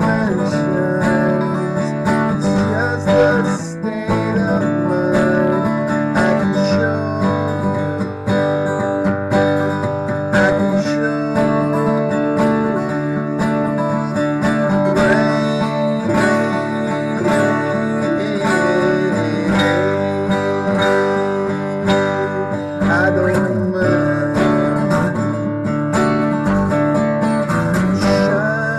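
Music: an acoustic guitar strummed through a song, with a man's voice singing over it in places.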